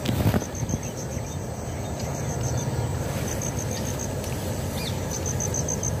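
Insect chirping in three short trains of high, evenly spaced pulses, each under a second long, over a steady low rumble. There is a brief bump just after the start.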